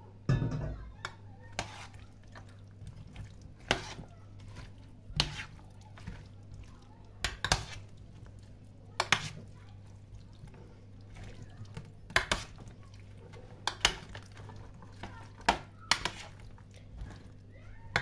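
Hands mixing chopped vegetables and raw meat with a tomato sauce on a metal oven tray: wet squelching, with sharp knocks against the tray every second or two, over a steady low hum.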